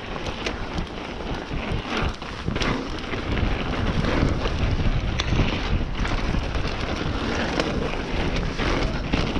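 Wind buffeting the microphone of a mountain bike on a trail descent, over a steady rumble with frequent sharp clicks and knocks as the bike rattles over rough ground.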